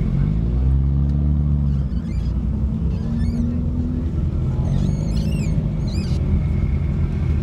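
Triumph Herald 2000's engine idling, revved up briefly just after the start and dropping back after about two seconds, with a smaller blip about three seconds in. A few short high chirps come near the end.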